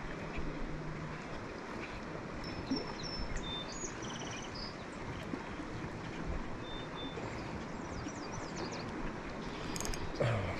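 Steady wind and choppy water lapping against an aluminium fishing boat, with faint bird chirps now and then and a short thump near the end.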